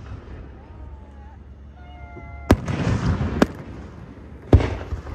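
Aerial fireworks shells bursting: three sharp booms about a second apart, with dense crackling between the first two.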